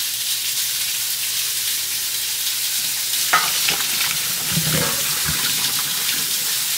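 Boiled potatoes and their hot water poured from a saucepan into a stainless-steel colander in the sink, with a short metal knock about three seconds in. Under it runs a steady sizzling hiss of lamb chops frying.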